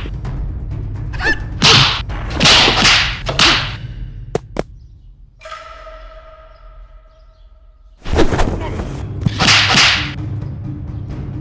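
Kung fu film fight sound effects: fast whooshing swishes of strikes and a couple of sharp snaps. Midway there is a long, high-pitched Bruce Lee-style cry lasting about two and a half seconds, and then more swishes near the end.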